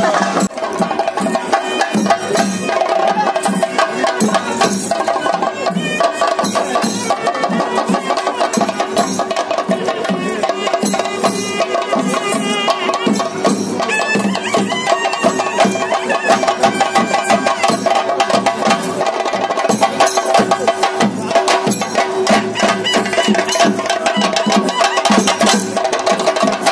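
Chenda drums beaten in fast, continuous strokes for a theyyam dance, with steady held tones sounding over the drumming throughout.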